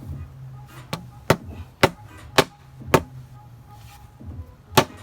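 Hammer striking wooden backrest pieces to drive them into an oak chair seat: a run of sharp knocks about two a second, a pause, then another blow near the end.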